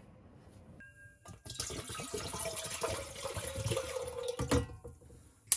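Water poured from a bottle into an enamel kettle, splashing and trickling for about three seconds, starting about a second and a half in. A knock near the end.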